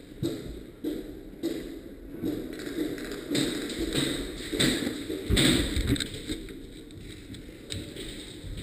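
Irregular taps and thumps, roughly one or two a second, over a low rustling.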